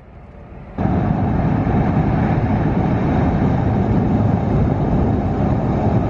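John Deere 9870 STS combine harvesting corn with an 8-row corn head: a steady, loud running of engine and threshing machinery that starts abruptly about a second in.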